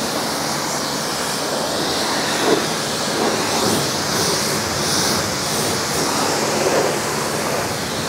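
High-pressure water jet from a BTALI 4 HP commercial pressure washer, green nozzle, spraying onto a car's body panels and wheel: a steady hiss of spray with no breaks. The noise comes from the jet, not the nearly silent motor.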